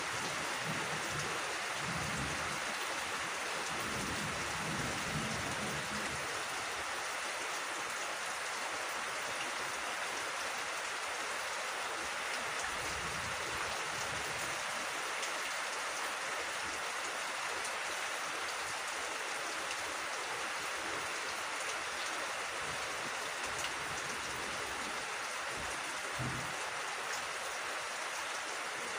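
Steady rain falling on a rice field and leafy undergrowth: an even, unbroken hiss.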